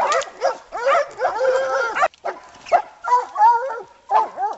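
Hunting dogs barking and baying a hog in quick, repeated barks, with a brief pause about two seconds in.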